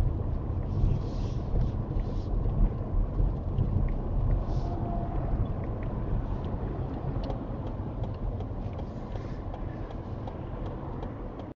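Low, steady rumble of a car's engine and tyres at walking pace, heard from inside the cabin, with a few brief hisses early on and scattered light ticks in the second half.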